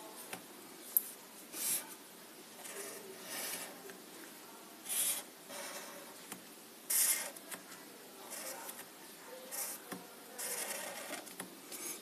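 Felt-tip marker drawing lines on paper: a series of short strokes, each under a second, with pauses between them.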